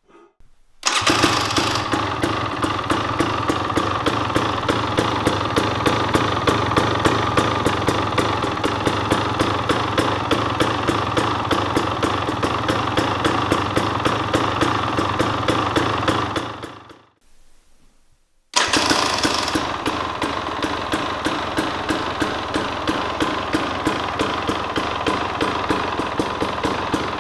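2023 KTM 300 XC TBI's two-stroke single-cylinder engine starting and idling with a steady pulsing beat through an FMF Factory Fatty pipe and PowerCore 2.1 silencer. It cuts out about 17 seconds in and starts again a second and a half later.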